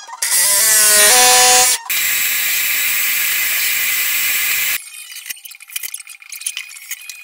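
Power tools at work in turn: a jigsaw cutting briefly with its motor pitch stepping, then a drill boring pocket holes with a steady hiss for about three seconds, then a cordless drill/driver driving screws with scattered clicks.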